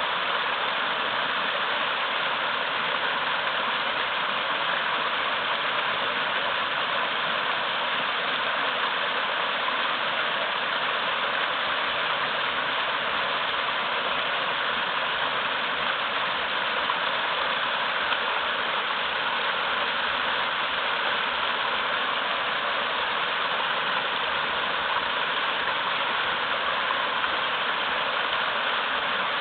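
Small mountain-river waterfall rushing hard over large rocks: a steady, even rush of water.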